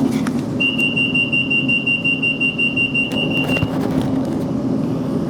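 Door warning beeps on a Class 458 electric train standing at a station: a high, rapidly pulsing beep for about three seconds, signalling the doors are about to close, over the train's steady low hum.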